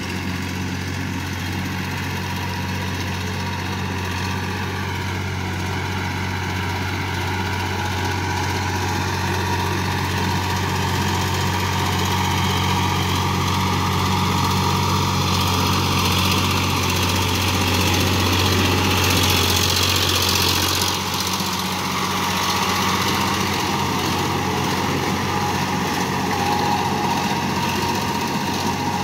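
Sonalika tractor's diesel engine running steadily under load as it drags an implement through a flooded paddy field. The engine grows slowly louder, then its low hum drops away about two-thirds of the way through.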